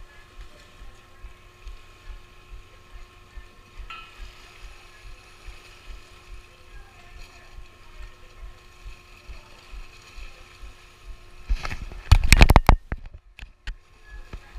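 A motor running steadily with a low, even throb. About twelve seconds in, a loud rush of noise on the microphone lasts about a second.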